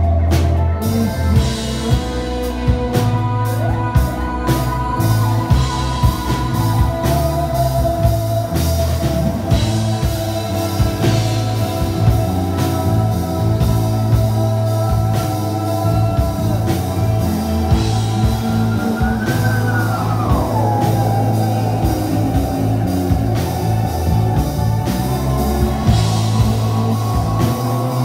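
A live rock band playing: drum kit, bass guitar, electric and acoustic guitars. A held high note slides down in pitch about two-thirds of the way through.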